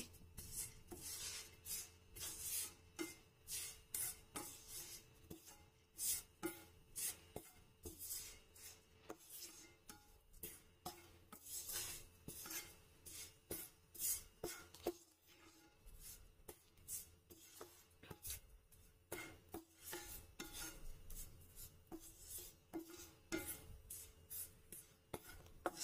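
Wooden spatula stirring and scraping grated coconut across a nonstick frying pan as it is lightly roasted: a quick series of short, faint scraping strokes, about two a second.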